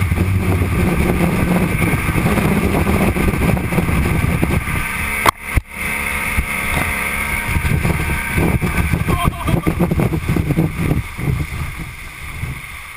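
Motorboat engine running steadily under way, with water and wind noise over the microphone. Two sharp knocks about five seconds in, and the engine sound gets quieter near the end.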